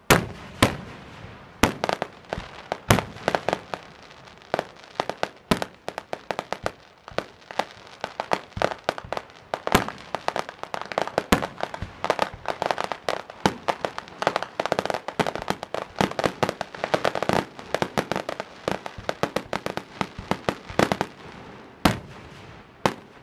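Aerial fireworks shells bursting in quick succession, with a few loud booms near the start, a dense run of rapid crackling through the middle, and another loud boom near the end.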